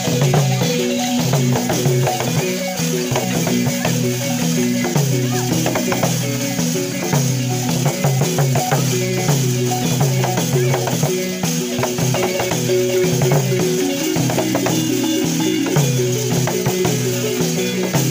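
Live West African funeral music: a balafon plays a fast repeating melody over gourd drums and shaker rattles, without a break.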